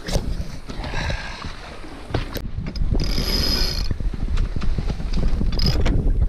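Sailboat deck gear working as a spinnaker is set: lines running through blocks and a winch clicking, with a high-pitched squeal of line under load about halfway through and again briefly near the end. Wind rumbles on the microphone.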